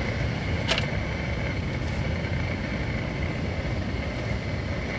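Portable gas cassette stove burner running with a steady roar, and a single sharp click about a second in.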